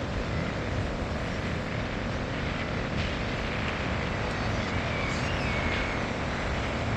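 Seaside ambience: a steady rushing noise, heaviest in the low end, as of wind and surf on a beach.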